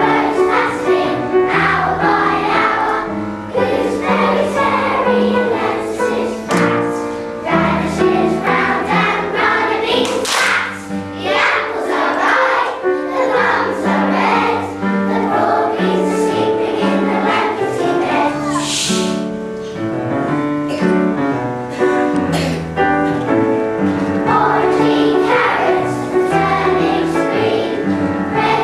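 A group of young children singing a song together in unison, with instrumental accompaniment.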